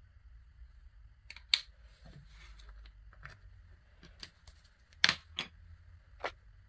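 A wooden spoon and a wooden stick clicking and knocking against a wooden board as they are handled and lifted away: one sharp knock about a second and a half in, then three close together near the end, the first of them the loudest.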